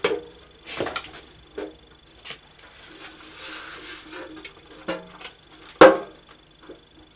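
Metal clunks and knocks of a motorcycle fuel tank being set down and shifted on its frame brackets and rubber mounts, with a brief rubbing scrape in the middle and one sharp knock near the end.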